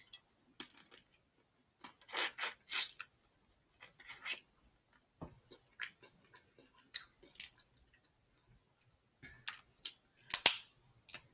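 Eating snow crab legs: chewing crab meat and picking the shells apart by hand, heard as scattered short clicks and crackles in irregular clusters.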